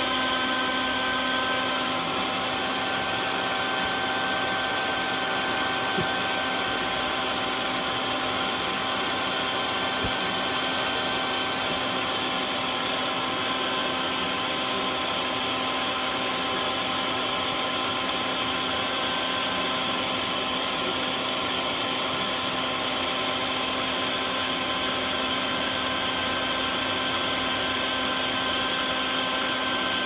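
A vacuum runs steadily, a constant whine over a rushing hiss, with its hose nozzle pressed into the entrance hole of a hornet nest to suck out the hornets.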